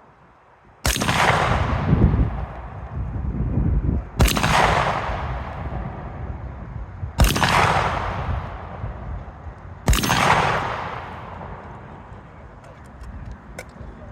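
Four shotgun shots about three seconds apart, each followed by a long rolling echo that fades over two to three seconds.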